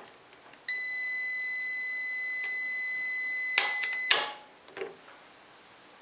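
Craftsman digital multimeter's continuity beeper sounding one steady high beep for about three and a half seconds as the dryer timer is turned through the regular dry setting. The beep means the timer's contacts are closed, and it cuts off with a click as the timer reaches the off position.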